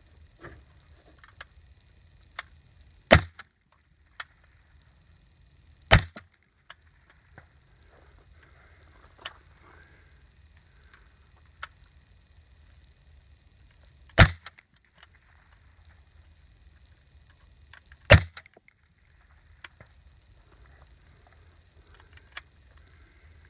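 Four single shots from an HK MR556 semi-automatic rifle in 5.56 mm. The first two are about three seconds apart, then after a pause of about eight seconds come two more about four seconds apart.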